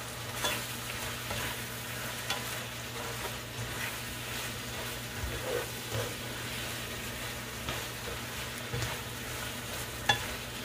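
Chicken pieces frying in a pot, sizzling steadily, while a utensil stirs them with occasional scrapes and knocks against the pot.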